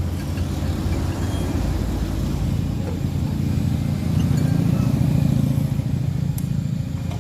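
A motor vehicle's engine running steadily, growing louder about four seconds in and then easing off, with a faint metallic click near the end.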